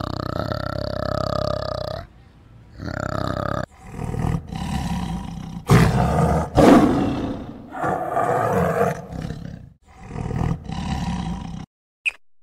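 A large animal's deep calls: one long call, then a series of roaring calls with short breaks between them, cutting off suddenly near the end, followed by a few faint clicks.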